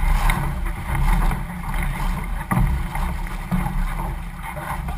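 Canoe paddles splashing and water rushing along the hulls, in surges about once a second, with a steady low wind rumble on the microphone. One sharp knock comes about two and a half seconds in.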